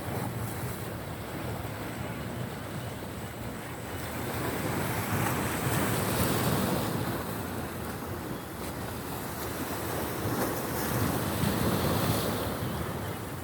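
Sea waves washing onto the shore, the surf swelling louder twice, with wind on the microphone.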